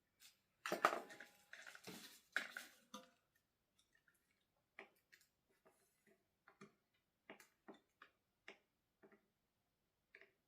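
Faint scattered clicks and light taps from handling at the soldering work, with a short run of scraping and rustling about a second in, then single small ticks every half second or so.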